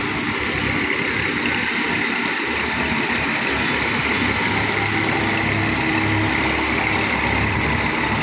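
A motor vehicle engine running steadily at an even speed, a constant hum with a high whine over it.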